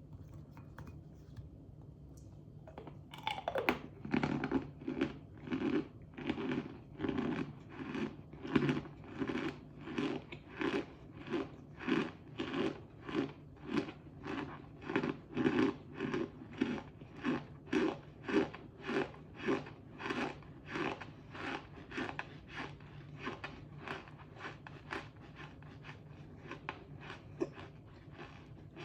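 A person biting into crunchy cornstarch about three seconds in, then chewing it with a steady crunch about twice a second, stopping near the end.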